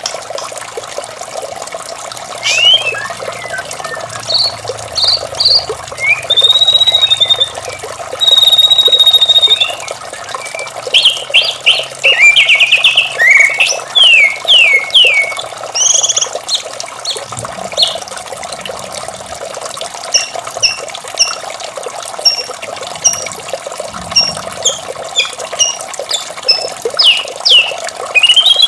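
White-rumped shama singing a varied song of clear whistles, rapid trills, falling slurs and short high notes, with steady running water behind it.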